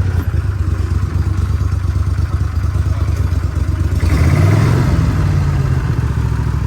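Small boat's outboard motor running at low speed, revving up briefly about four seconds in and then settling back.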